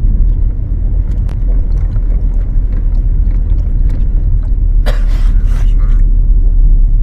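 Low, steady road and running rumble inside the cabin of a 2012 Ford Focus automatic being driven, with a few light clicks and a short rustling hiss about five seconds in.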